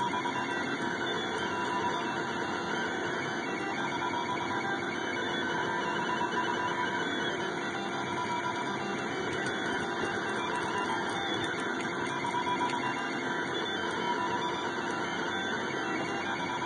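SeeMeCNC Orion delta 3D printer running a print: its stepper motors whine in tones that swell and fade as the head moves, over a steady hiss.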